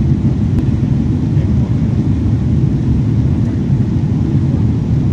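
Steady low rumble of cabin noise inside a Boeing 777 airliner in flight, the engines and rushing air blending into one even drone.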